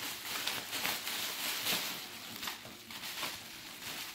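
Plastic bubble wrap rustling and crinkling in irregular bursts, with a few sharp crackles, as it is handled and pulled off an object.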